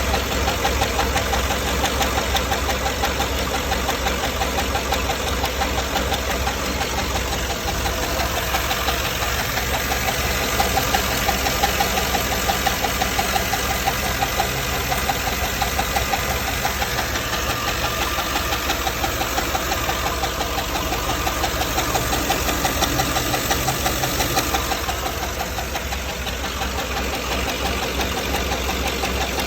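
GM 6.2L L94 V8 running with a steady, rapid lifter knock. The knock comes from a damaged roller lifter whose roller rides the cam lobe badly, damage caused by cheap non-OEM lifter trays that let the lifters twist in their bores.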